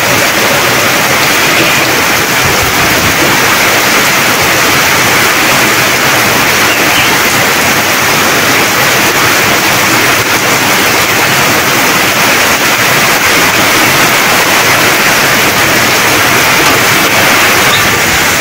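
Heavy rain pouring down steadily on corrugated tin roofs, an even, unbroken hiss.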